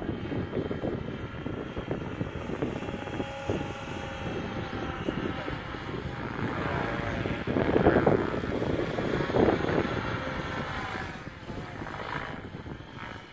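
Align T-Rex 700 Pro electric RC helicopter flying overhead on a 12S battery: rotor whoosh with a steady motor and gear whine. It grows loudest about eight seconds in, again a second and a half later, then fades.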